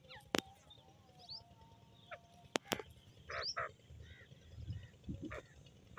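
Grey francolin (teetar) calling: a pair of short pulsed notes about halfway through, followed by a few fainter short notes, with small high chirps around them. A few sharp clicks come before the calls, two of them close together.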